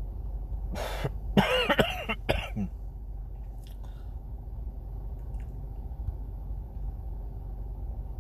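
A man coughing and clearing his throat about a second in, a short burst followed by voiced, wavering sounds, over a steady low hum.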